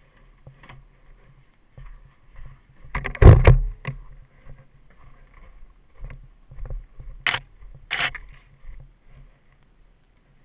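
Irregular knocks, rustles and handling noises with no engine running. The loudest is a heavy thump about three seconds in, and two short sharp noises come just over seven and eight seconds in.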